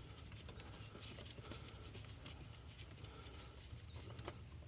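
Faint, irregular scraping and ticking of the loosened oil filter being turned off its threads by hand, over a low steady hum.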